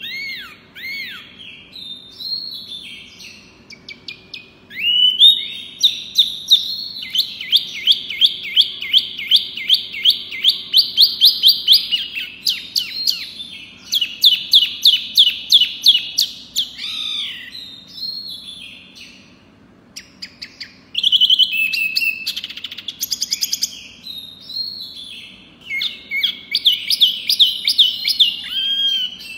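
A caged wambi mini, a small songbird, singing in bursts of rapid repeated high chirping notes, several a second, with short pauses between phrases. A faint steady hum sits underneath.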